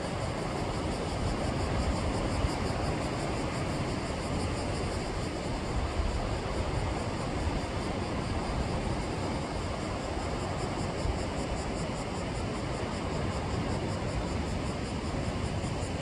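Sea surf washing steadily against the shore, an even noisy roar with a strong low rumble and no separate wave crashes.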